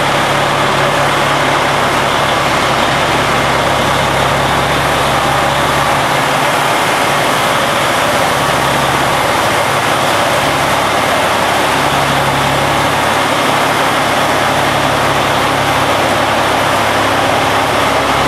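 Steady hiss of high-pressure water jets spraying from a touchless truck-wash arch onto a tanker truck, over the low running of the truck's engine as it creeps through the bay.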